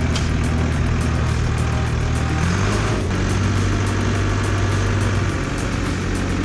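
Engine of a heavy earthmoving machine running steadily under load, its pitch shifting about two and a half seconds in.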